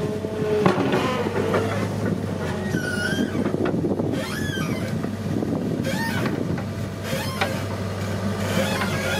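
CAT 312 excavator's diesel engine running steadily, with several sharp knocks and short squeals from the machine at work.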